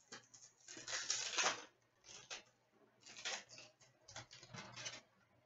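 Foil hockey-card pack wrapper crinkling as it is torn open, in four short rustling bursts.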